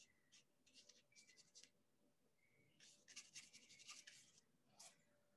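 Faint, soft scratching of a paintbrush stroking paint onto paper in short strokes, busiest about three to four seconds in.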